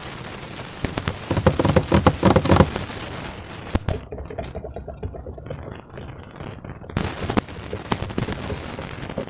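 Slime being squeezed and worked by hand, giving a run of wet crackling clicks and pops that is densest in the first few seconds, with single sharper pops later.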